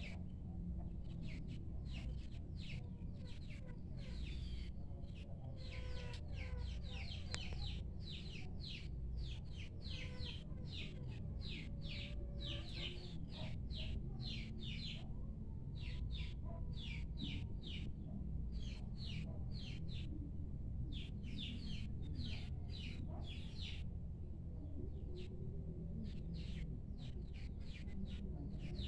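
A small bird chirping in a quick, repeated series of short high chirps, several a second, over a steady low rumble.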